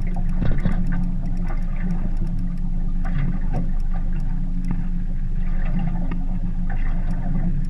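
Steady low drone of a boat motor running, with faint quick ticking over it.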